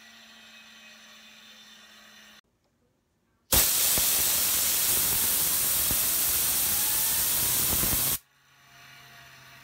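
Compressed-air blast from an air hose nozzle hissing loudly and steadily for about four and a half seconds, spinning up a Magic BMX fidget spinner, with a faint rising whine inside the hiss. It starts abruptly after a moment of silence and cuts off sharply; the blast is kept to about four seconds because longer ones make the spinner's rubber band expand and fly off.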